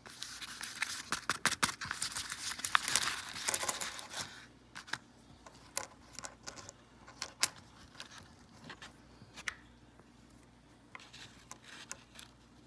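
Copper wheat pennies clinking against one another as they are worked out of a paper coin roll, with the wrapper crinkling: a dense run of clicks for about the first four seconds, then scattered single clicks as coins are slid off the stack and set on the wooden table.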